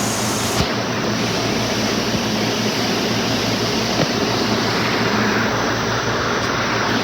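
Electric commuter train running past at close range: a steady, loud rumble with a low hum underneath, cutting off abruptly at the end.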